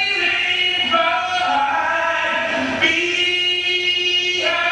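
A man singing into a microphone, holding long notes that step between pitches with short breaks.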